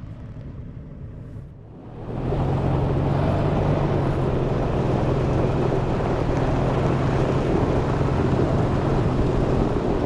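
A vehicle on the move: a steady low engine hum under loud road and wind noise, which swells up suddenly about two seconds in and then holds steady.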